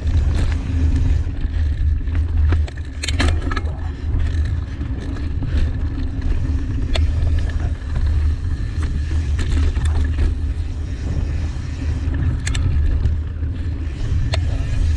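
Mountain bike rolling down a dirt trail: a steady low rumble of tyres and bike, with scattered sharp clicks and rattles as it rides over roots and rocks.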